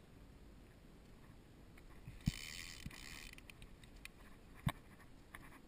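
Sit-on-top kayak hull knocked twice, about two seconds in and again near the end, with a brief hiss just after the first knock, over a faint steady background.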